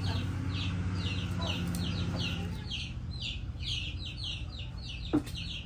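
Chicks or hens peeping in a fast, steady run of short, high, falling calls, about three to four a second, over a low steady hum that fades about halfway through. A single knock sounds near the end.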